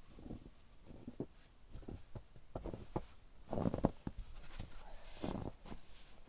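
A run of irregular soft knocks with short scraping, crunching stretches.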